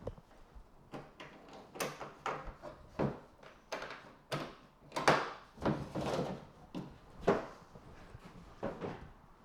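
The back lid of a rack case being taken off, giving a string of irregular knocks and clunks as it is handled, with two louder clunks about five and seven seconds in.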